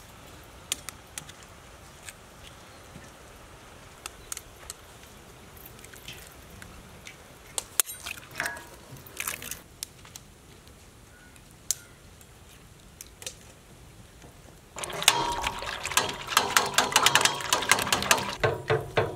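Eggs being cracked open with knives: scattered sharp taps over a faint background. About fifteen seconds in, eggs are beaten with a metal utensil in a steel bowl, a fast run of clicking, sloshing strokes that is the loudest part.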